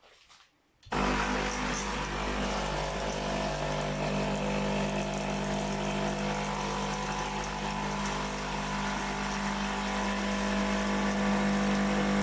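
DeLonghi Magnifica coffee machine's water pump kicking in about a second in and running steadily with a hum and a hiss of water, pushing descaler solution through in the descaling cycle.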